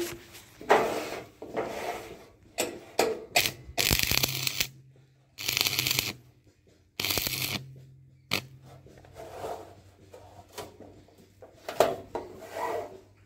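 Stick arc welder striking short arcs to tack-weld a pipe to a steel sheet. Three bursts of arc noise, each about a second long, come between about four and eight seconds in, with the welding machine's low hum under load. Scattered knocks and scrapes of the electrode and holder are heard around them.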